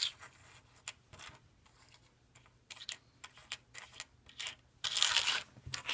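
Plastic keycaps clicking and tapping as they are picked up, moved and set down, with a brief louder scraping rustle about five seconds in.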